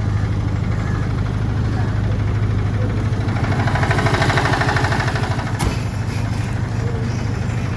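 A 20 kVA diesel generator set running steadily inside its soundproof acoustic enclosure, a constant low hum. It grows louder for a couple of seconds in the middle, and a single sharp knock comes about five and a half seconds in.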